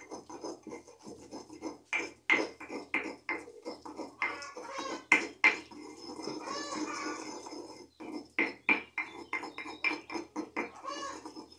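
Stone pestle knocking and grinding garlic in a volcanic-stone molcajete: irregular sharp knocks with scraping rubs between them, and a stretch of steadier grinding about halfway through.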